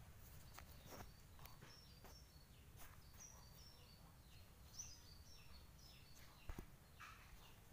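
Faint background of a small bird chirping in a rapid run of short, high, falling notes, with a few light clicks from parts being handled.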